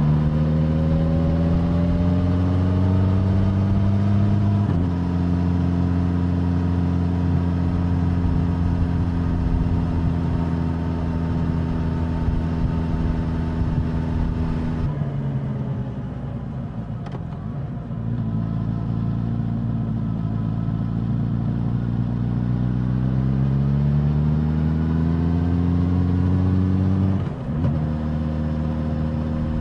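Suzuki GSX-S1000 inline-four engine and exhaust on the move: it accelerates with rising pitch, upshifts about five seconds in and holds a steady cruise. About halfway through the throttle is rolled off and the pitch falls, then it accelerates again with another upshift near the end.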